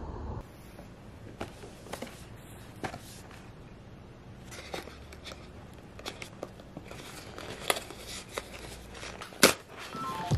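Hands opening a cardboard retail box: fingers picking at the flap and tearing its paper insert, with scattered crinkles and small clicks and one sharp snap near the end.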